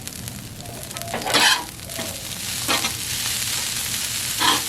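Beef and rice frying on a Blackstone griddle's steel top, with a steady sizzle that gets louder after about two seconds. Three louder scrapes of a spatula are stirring the food across the griddle: one about a second in, one near three seconds, and one near the end. The rice is starting to stick to the griddle.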